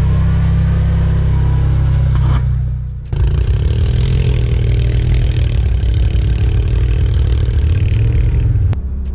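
Off-road vehicle engines: a side-by-side UTV running steadily as it drives by. After a short dip about three seconds in, a Can-Am ATV's engine is heard close up from the handlebars, running and rising and falling in pitch as it rides a muddy trail. The sound drops off sharply near the end.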